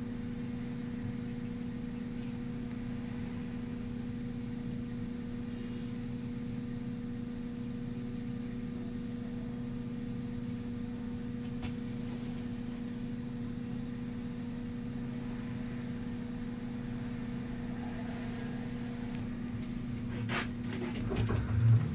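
Golden Dragon Astar electric city bus standing still with a steady electrical hum. Near the end there are a few knocks, and the whine of its Golden Dragon TZ210XS 100 kW traction motor starts to rise as the bus pulls away.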